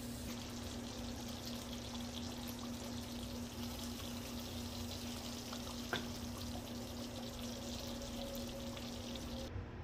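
Thick shiro stew simmering in a pan with a steady fizzy crackle of popping bubbles, while a ladle stirs and scoops through it, with one sharp click about six seconds in. A steady low hum runs underneath, and the crackle cuts off just before the end.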